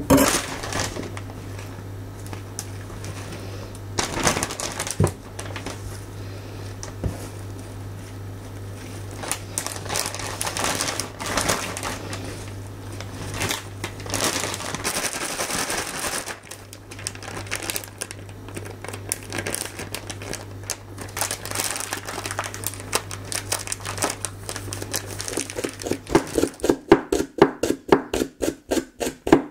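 Clear plastic zip bag crinkling and rustling in scattered bursts as shimeji and enoki mushrooms are pulled apart by hand and dropped into it. Near the end, a kitchen knife chops a Japanese long onion (naganegi) on a wooden cutting board, an even rhythm of about four strokes a second.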